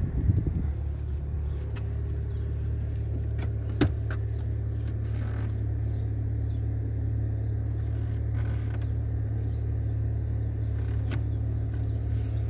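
Steady low mechanical hum, with a few faint clicks about a second in and about four seconds in.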